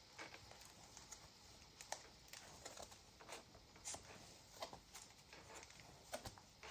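Faint rustles and soft ticks as the stiff paper pages of a handmade storage book, fitted with plastic sleeve pockets, are turned one after another by hand. The sound is close to silence, with a short scattered tick every second or so.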